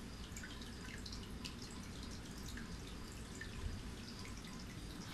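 Faint, scattered light ticks and crinkles from a feather-and-tinsel cat wand toy being jiggled, over a low steady hum.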